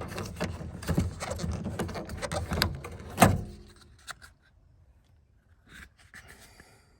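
Plastic inner door-handle trim of a 1996 Honda Civic door panel being worked loose: scraping and rattling plastic with a sharp clack about three seconds in, then a few faint clicks.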